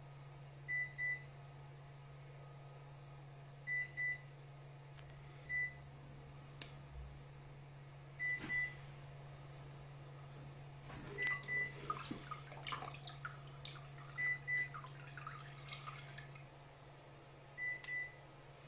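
An electronic device beeping every few seconds, mostly two short high beeps at a time, over a steady low hum that drops away near the end. Around the middle come irregular crinkles and light clicks, which fit wet water-slide decal paper being handled on a ceramic mug.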